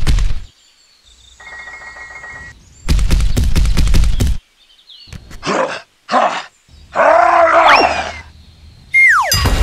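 Dubbed cartoon sound effects for a Hulk action figure: two loud crashing rumbles, then two short grunts and a drawn-out roar with a wavering pitch as the figure lifts a trailer. A falling whistle comes in near the end.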